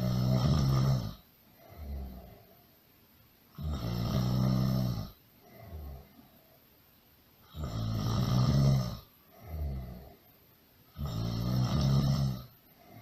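Loud snoring: each snore is a long pitched buzz followed by a shorter, softer breath out, repeating steadily about every four seconds.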